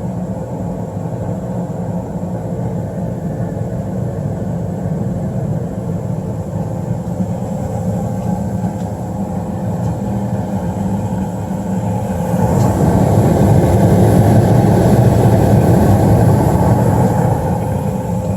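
Newly installed high-efficiency gas furnace running steadily: a continuous low rumble with a faint steady hum, growing louder for several seconds from about twelve seconds in.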